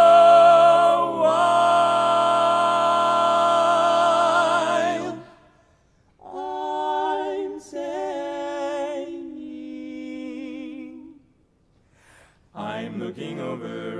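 Barbershop quartet of four men's voices singing a cappella, holding one long ringing chord for about five seconds before a short break. A lighter, thinner sung passage follows, and after a second brief pause the full quartet comes back in near the end.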